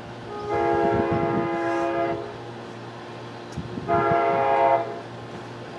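Amtrak Pacific Surfliner locomotive horn sounding twice from the approaching train: a long blast of about a second and a half, then a shorter one about two seconds later.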